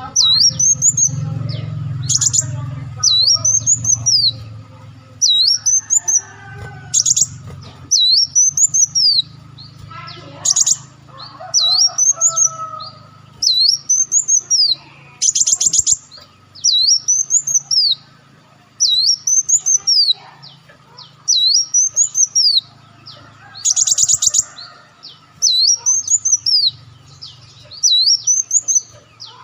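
Sunbird (burung madu wulung/muncang) singing: sharp, high whistled notes that rise and fall, repeated about once a second, broken every few seconds by a short rapid trill. A low steady hum runs underneath.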